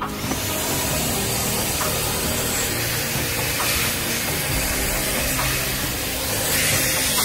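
Vacuum cleaner running, its hose nozzle sucking metal drilling chips out of a freshly drilled hole in a steel block: a loud, steady hiss that grows a little louder and sharper near the end.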